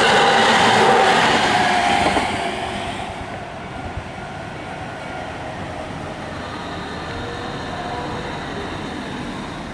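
Train passing close by at a level crossing, loud for the first two seconds or so, then fading to a steadier, quieter rumble as it moves away.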